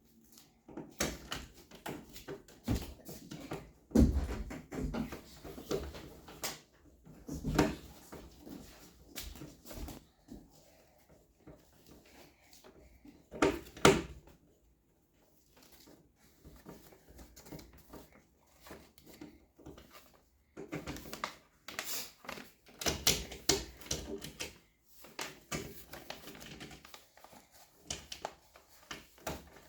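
Irregular clicks, taps and scraping of a Phillips screwdriver and an old wall switch being worked loose from its electrical box, with a few louder knocks.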